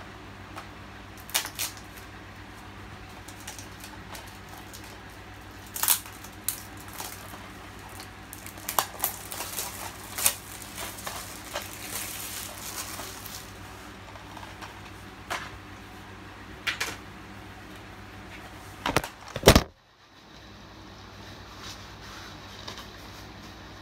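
Irregular clicks, taps and crinkles of a plastic DVD case and its wrapping being handled and opened, over a steady low hum. Two louder knocks come near the end, after which only a faint hiss remains.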